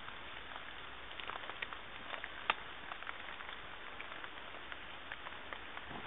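Steady hiss of rain falling on woodland, with scattered drips ticking and one sharper tick about two and a half seconds in.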